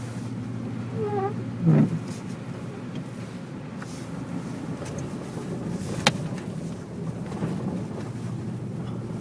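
Steady engine and road drone heard inside a vehicle driving on a snow-covered road, with a loud low thump just under two seconds in and a single sharp click about six seconds in.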